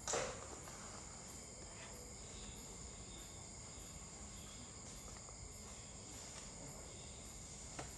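Faint steady background hiss with a high-pitched whine and a faint regular ticking, just under two ticks a second. A brief sharp sound right at the start is the loudest thing, and there is a faint click near the end.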